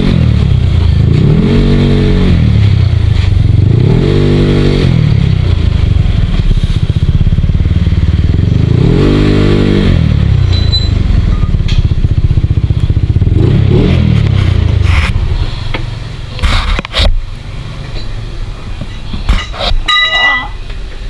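Motorcycle engine revving up and down several times as the throttle is opened and closed in stop-and-go riding. About 15 s in the engine sound drops away, leaving scattered clicks and clatter.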